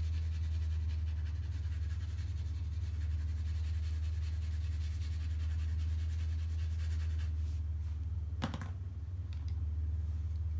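Graphite pencil hatching on drawing paper: quick, light, repeated scratchy strokes for about the first seven seconds, then they stop. A steady low hum runs underneath throughout. About eight and a half seconds in there is one sharp click, followed by a few faint ticks.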